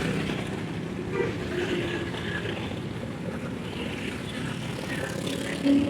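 Steady vehicle and road-traffic noise, with wind on the microphone.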